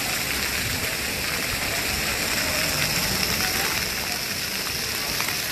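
Steady rushing hiss of water from a plaza fountain's jets, with crowd chatter behind it.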